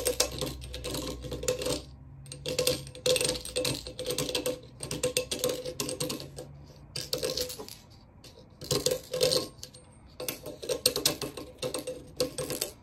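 A hand deburring tool's swivel blade scraping around the inside edge of a freshly threaded galvanized steel pipe, removing the burr. It comes as repeated short, clicking scraping strokes about a second long with brief pauses between them, with a faint ring under the strokes.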